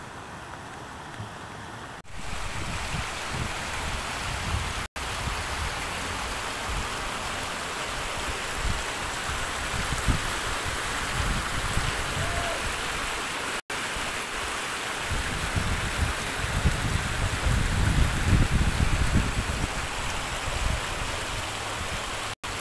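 Floodwater running and spilling over a road edge, a steady hiss of moving water, with irregular low rumbles that grow stronger in the second half.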